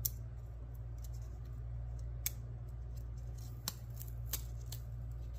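A few scattered sharp clicks and crinkles of a sticker being handled and put up by hand, over a steady low hum.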